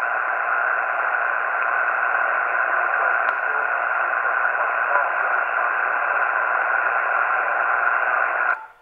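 Steady hiss of band noise from a Yaesu FT-891 HF transceiver's speaker, tuned to an empty 12-meter sideband frequency while listening for replies to a CQ call. The hiss is band-limited like a voice channel, with a faint steady tone under it, and cuts off suddenly near the end.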